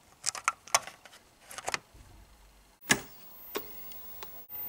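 Small plastic clicks of an SD card being pushed into an SD2IEC drive's card slot and latching. A single sharper click follows about three seconds in.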